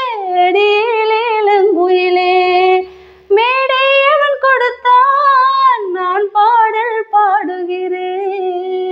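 A woman singing unaccompanied in Tamil, drawing out long, ornamented held notes. There is a short breath break about three seconds in. Near the end she settles on one long sustained note.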